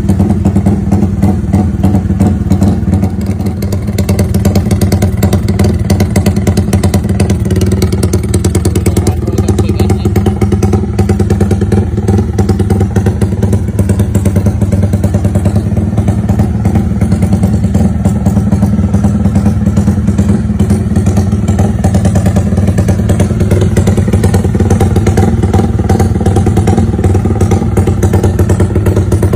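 Yamaha Y15ZR (MX King) single-cylinder four-stroke motorcycle engine idling with a lumpy rumble through a loud aftermarket exhaust, its firing pulses steady.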